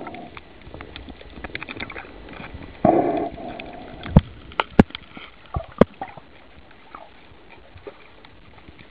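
Muffled underwater sound picked up by a submerged camera: a short, muffled burst about three seconds in, then several sharp clicks over the next few seconds.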